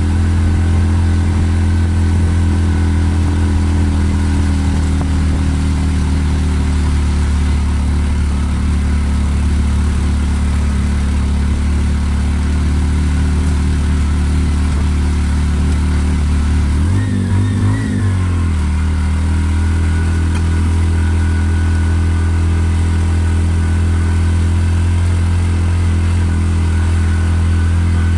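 Motorcycle engine running steadily at cruising speed, heard from aboard the moving vehicle; its note shifts briefly about two-thirds of the way through, then settles again.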